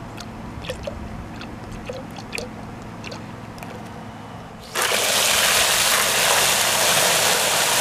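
Car wash gel glugging and trickling from a plastic bottle into a bucket of water, with faint drips. Almost five seconds in, a loud steady hiss starts as a jet of water is sprayed into the bucket to fill it.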